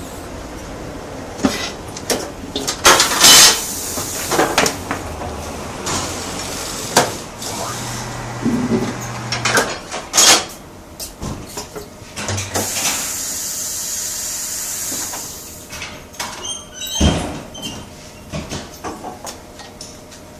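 Tyre-change workshop noise: repeated metal clanks and knocks, with long hisses of compressed air, one about three seconds in and a longer one in the middle lasting about three seconds.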